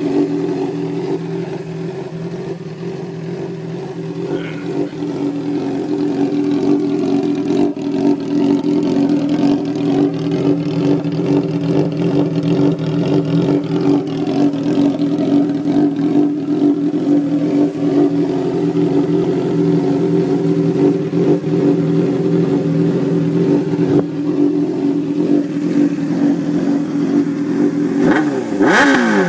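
Honda CBR600RR inline-four engine in a custom ATV idling steadily, then revved sharply near the end.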